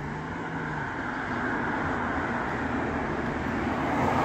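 A car approaching and driving past close by, its tyre and engine noise swelling steadily and loudest near the end.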